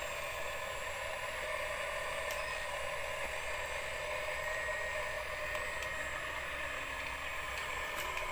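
Small electric motors and gearboxes of radio-controlled construction trucks running steadily.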